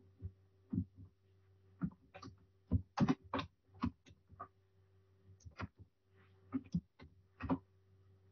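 Computer keyboard keys clicking in an irregular run as a short phrase is typed, about twenty key presses, over a faint steady hum.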